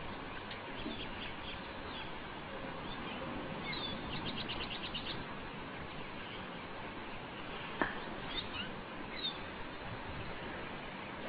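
Bird chirping: scattered short high chirps, with a quick run of about eight rapid notes around four seconds in, over a steady background hiss. A single sharp click comes about eight seconds in.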